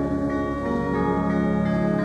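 Organ postlude after the benediction: sustained chords, the notes changing several times.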